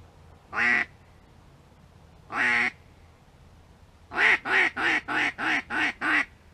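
Duck quacking: two single quacks, then a quick, evenly spaced run of seven quacks.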